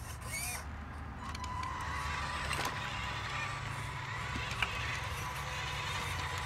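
Electric drive of a radio-controlled Western Star dump truck whining in one steady tone from about a second in as the truck drives across dirt, with a few sharp clicks.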